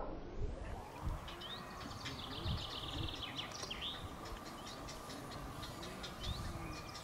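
Birds chirping, with short downward-sweeping calls and a quick rapid trill a few seconds in, over a few low thumps.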